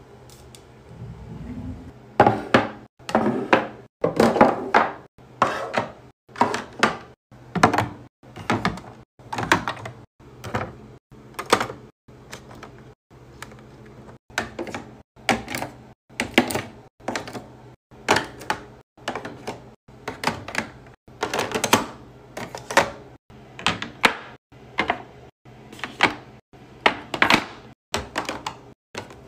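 Plastic skincare bottles and jars being set down into clear plastic drawer-organizer bins and shuffled into place, making a run of sharp knocks and clacks about one or two a second, with short silent gaps between.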